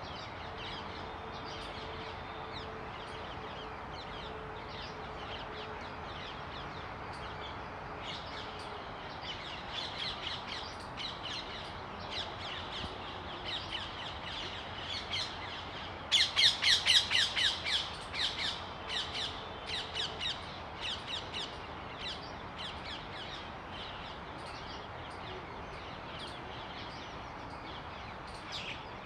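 Oriental magpie robin calling: short, sharp high notes repeated irregularly over a steady background hiss, with a loud, rapid run of notes just past the middle.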